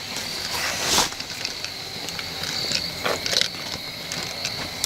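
Crickets chirping in a steady high chorus, with scattered clicks and a rustle of handling about a second in.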